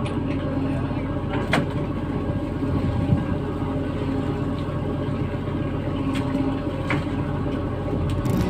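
Steady low drone of a fishing vessel's engine and deck machinery running, with a few short knocks.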